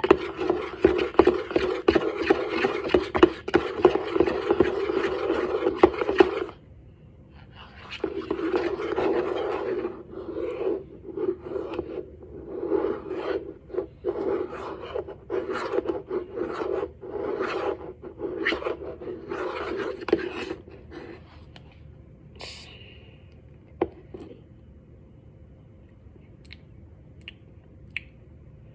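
Metal spoon stirring sauce in a bowl, scraping fast and without a break for about six seconds, then in repeated shorter bursts, then stopping after about twenty seconds with only a few light clicks.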